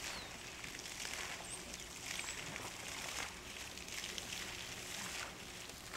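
Quiet outdoor ambience: a steady faint hiss with a few brief high bird chirps and scattered soft rustles.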